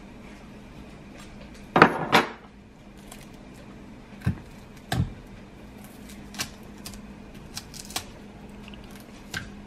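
Chef's knife and green plantain knocking and clicking against a wooden cutting board as the plantain's skin is scored and pried off: two loud knocks about two seconds in, then scattered lighter clicks.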